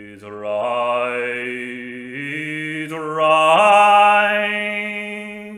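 An unaccompanied male voice sings in the Irish traditional style, holding long drawn-out notes with no clear words. The pitch steps upward three times, and the voice is loudest on the last, highest note before it fades.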